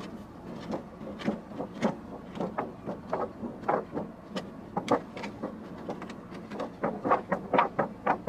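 Clear plastic face shield crinkling and flapping as it is waved and flexed by hand, an uneven run of sharp crinkles that comes faster near the end.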